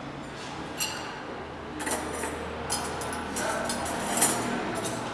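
Metal cutlery clinking against itself and a serving tray as forks, knives and spoons are picked up and laid out on a table: a run of about eight short, sharp clinks, most of them in the second half.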